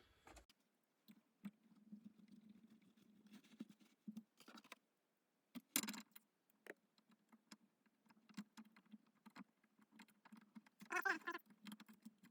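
Faint, scattered clicks and light taps of metal parts of an old hand plane being handled and tightened, with a short squeak near the end.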